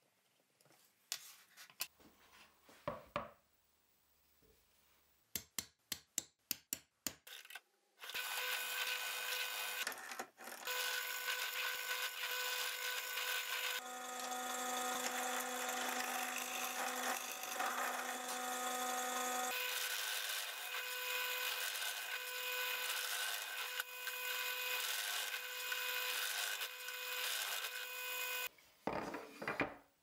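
Pencil scratching faintly along a combination square while marking plywood, then a quick run of sharp taps. From about eight seconds in a bench drill press runs steadily for some twenty seconds, boring holes through plywood, its note shifting for a few seconds midway.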